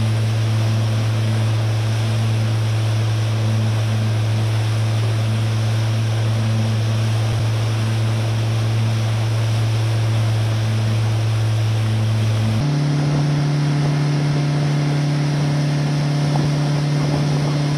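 Motorboat engine running at speed, a steady low drone over the rush of water and wind. Its pitch steps up abruptly about two-thirds of the way through.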